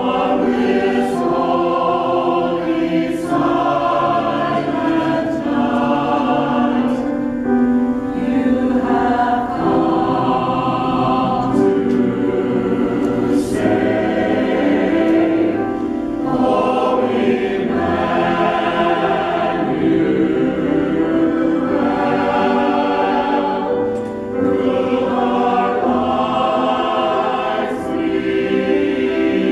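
Mixed choir of men's and women's voices singing a Christmas piece in harmony, with brief pauses between phrases.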